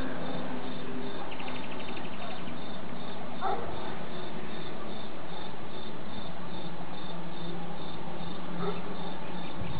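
Crickets chirping, a high chirp repeating about twice a second, over a steady hiss, with a brief faster trill about a second and a half in.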